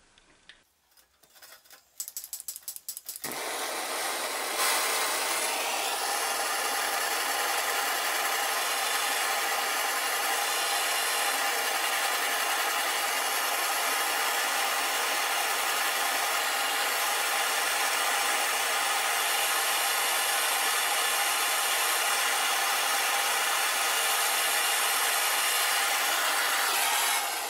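Plumber's gas blowtorch on a disposable canister: a quick run of clicks as it is lit, then the steady hiss of the flame heating brass for soft soldering, which stops suddenly near the end.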